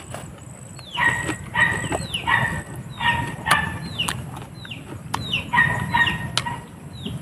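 Chickens clucking over and over, short calls about one to two a second, with a few crisp chewing clicks from someone eating raw green papaya.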